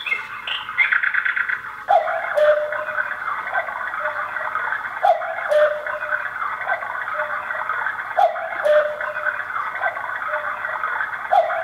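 Quartz battery cuckoo clock sounding the hour: recorded two-note cuckoo calls, each pair falling in pitch, repeating about every three seconds with a click at each. A steady higher-pitched sound runs behind them.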